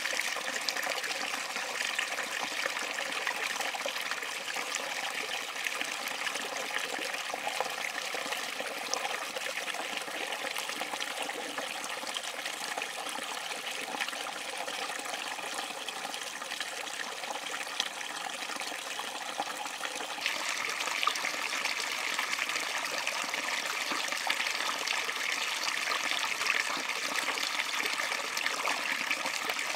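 Shallow stream water running and splashing through a narrow gap between rocks into a stretched mosquito net, a steady rush that grows a little louder about two-thirds of the way through.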